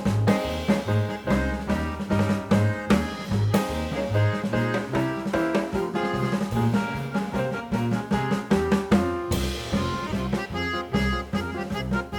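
Background music: an upbeat jazz or swing tune with a drum kit keeping a steady beat and brass instruments.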